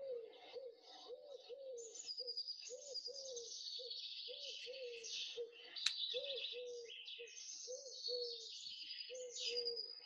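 Recording of a Eurasian collared dove cooing: a steady series of low, repeated coos, with small birds chirping high above it throughout. A single sharp click comes about six seconds in.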